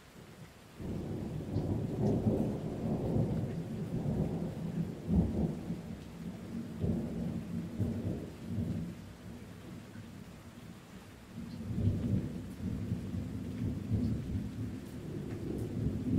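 Deep thunder rumbling in two long rolls. The first starts suddenly about a second in and fades off around the middle, and a second roll swells up a little later. Under it is a faint hiss of rain.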